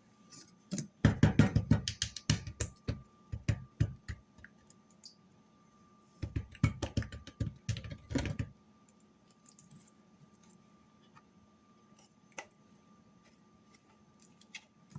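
Barbecue sauce squeezed from a plastic squeeze bottle onto a pizza crust, crackling and sputtering in two bursts: one about a second in, the other around six seconds.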